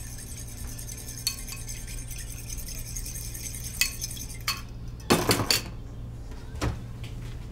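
Kitchen dishes and utensils clinking as a small bowl is handled and set down, with scattered single clinks and a short burst of clatter about five seconds in, over a low steady hum.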